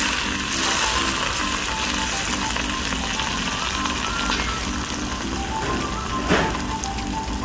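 Water-dampened sancho (Korean prickly ash) seeds sizzling in hot oil in a wok as more oil is poured on, a steady frying hiss. A single sharp click about six seconds in.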